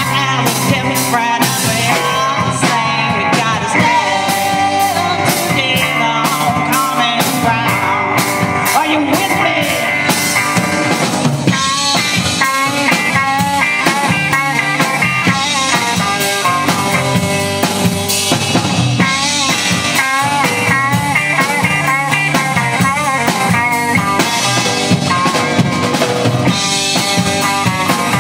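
Live rock band playing an instrumental passage: electric guitars, electric bass and drum kit keep a steady beat. From about a third of the way in, a lead line with wavering pitch plays over it.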